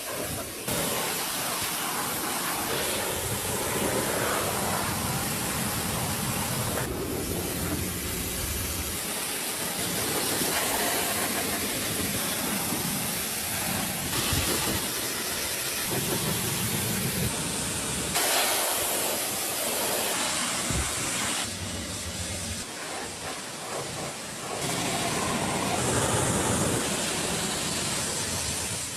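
Pressure washer spray hissing steadily against the car, in several clips cut together, each section changing abruptly.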